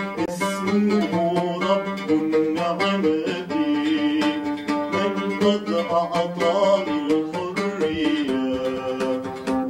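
A man singing while plucking an oud, the Arabic lute, its picked notes running under his voice.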